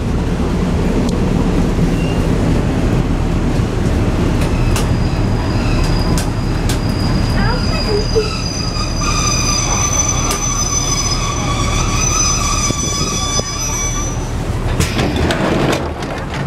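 Passenger train carriage rumbling along the track as it slows into a station, with a high squeal of several steady tones from the brakes and wheels from about five seconds in until about fourteen seconds.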